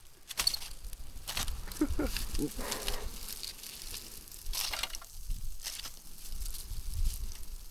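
Campfire crackling, with irregular sharp cracks over a low rumble of wind on the microphone.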